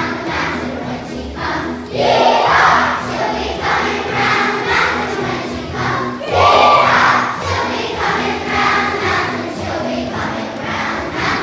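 A group of children singing together over a musical accompaniment with a steady, repeating beat; the singing swells louder about two seconds in and again just past the middle.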